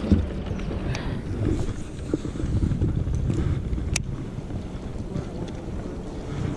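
Wind buffeting the microphone on an open fishing boat, an uneven low rumble, with a thump just after the start and one sharp click about four seconds in.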